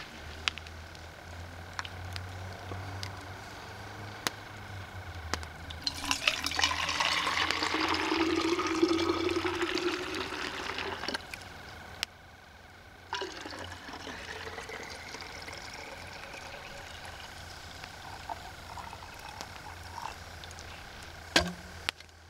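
Hot water poured from a billy pot into a container, the pitch rising as it fills. The main pour starts about six seconds in and lasts about five seconds, and a quieter pour with a slowly rising tone follows. There are scattered small clicks and a sharp knock near the end.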